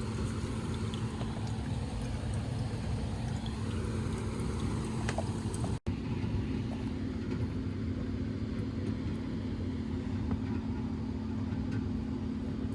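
Steady mechanical running noise with a low hum from an air-conditioning unit running. The sound drops out for an instant about six seconds in, after which the hum is stronger.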